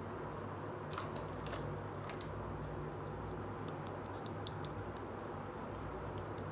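Small hard plastic toy kitchen pieces clicking and tapping as they are picked up and handled, in scattered light clicks with a cluster about four seconds in, over a steady low background hum.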